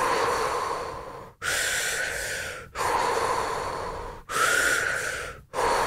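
A woman doing super-ventilation breathing: deep, audible breaths in and out with no pause between them, exhaling through her nose. The inhales and exhales alternate about every 1.3 seconds, five strokes in all.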